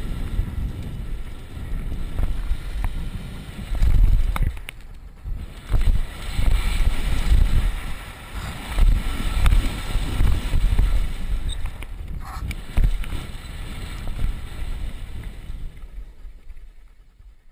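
Wind buffeting a helmet-mounted camera's microphone during a fast mountain-bike descent, in uneven gusts, with tyre rumble on the dirt trail and occasional sharp clicks and rattles from the bike. The sound fades out near the end.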